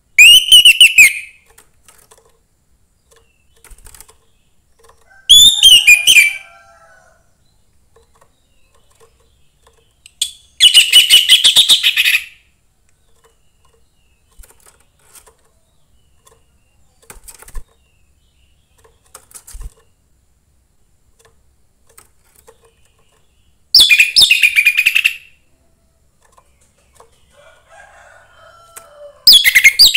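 Young wild-caught orange-headed thrush (anis merah) singing short phrases of fast, high, chattering notes, each about a second long. There are five phrases, a few seconds apart, with a longer pause in the middle.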